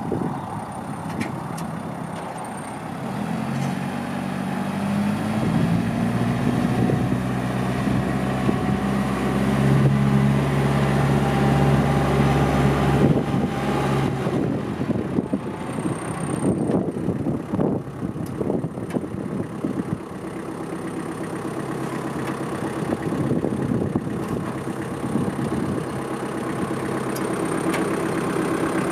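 Kubota MX5000 compact tractor's diesel engine running, its pitch climbing a few seconds in and then holding steady. From about halfway it continues at a rougher, lower idle.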